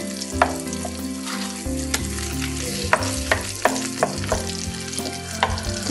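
Canned foie gras frying in hot oil in a frying pan, sizzling steadily while a wooden spatula stirs and breaks it up so it melts, with about eight knocks and scrapes of the spatula against the pan.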